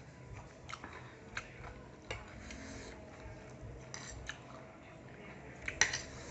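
Eating utensils clicking against a bowl while spicy instant noodles are eaten: scattered sharp clicks, with a quick cluster of louder clicks near the end.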